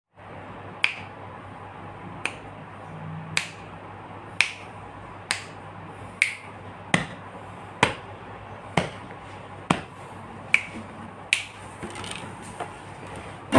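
Finger snaps, about fourteen of them, roughly one a second but not perfectly even, over a faint steady hum and hiss.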